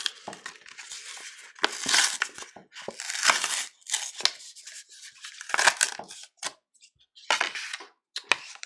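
Plastic wrapper of a basketball trading-card pack being torn open and crinkled by gloved hands, in several short bursts of crackling and tearing.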